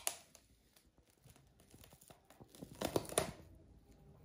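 Clear plastic cling wrap crinkling and tearing as small hands pick at it and pull it off a large round fruit: a short crackle at the start, then a louder cluster of crackles about three seconds in.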